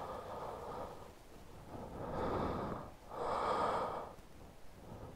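A person breathing close to the microphone: three long breaths, each about a second, the last the loudest.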